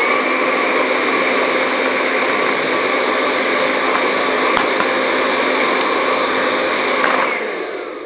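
BaByliss 3Q hair dryer's fan motor running at a steady speed with its blue cold-air button lit and stuck on, so it blows only cold air. About seven seconds in it is switched off and winds down with a falling whine.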